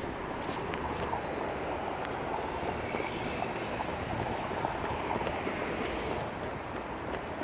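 Steady outdoor background noise: a low traffic hum with hiss, with no distinct event.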